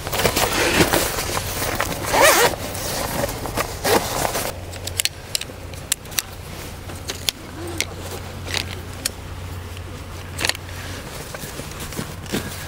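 Rustling and scraping for the first few seconds, then scattered sharp clicks and light knocks, the sound of small objects being handled, over a steady low hum.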